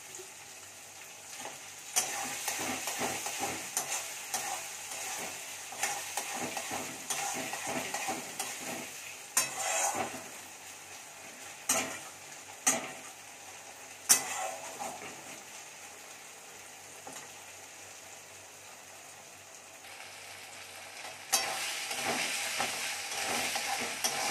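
Chopped tomatoes sizzling in hot oil with onions and ginger-garlic paste in a metal kadai as a metal spatula stirs and scrapes the pan. A few sharp clanks of the spatula against the kadai come in the middle. The stirring eases off for a few seconds, then picks up again near the end.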